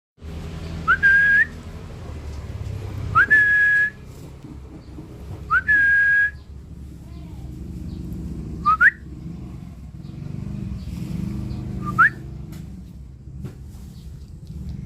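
Lory (nuri parrot) whistling: three whistles that each rise sharply and then hold a steady note for about half a second, then two short upward-sweeping whistles, over a low background rumble.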